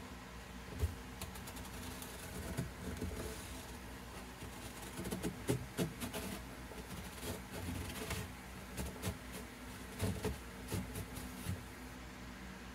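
Light wooden knocks, taps and scrapes of a wooden caul block being set down and shifted on a guitar top over freshly glued braces, coming in small clusters over a steady faint hum.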